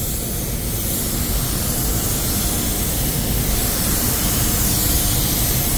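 Compressed air hissing steadily through an Iwata W-300 WB spray gun as it sprays a second coat of paint.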